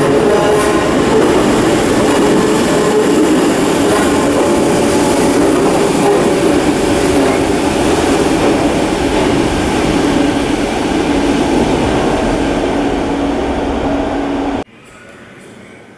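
Merseyrail third-rail electric multiple unit pulling out of an underground platform and running off into the tunnel, a steady rumble of wheels and motors echoing off the tunnel walls. The hum in it falls slightly in pitch, and the sound cuts off abruptly near the end.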